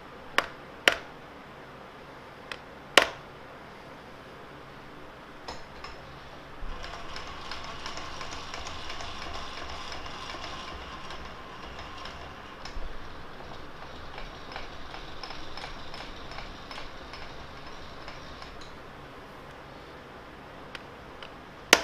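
Light, sharp taps of a small hammer on the steel bracket: four in the first three seconds, one more at about five seconds, and a loud one near the end. They nudge the bracket square under a dial indicator. In between, for about twelve seconds, the milling machine table traverses with a steady mechanical running sound.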